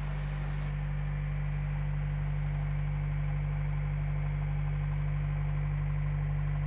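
Narrowboat's diesel engine running at a steady cruising speed, a constant low drone.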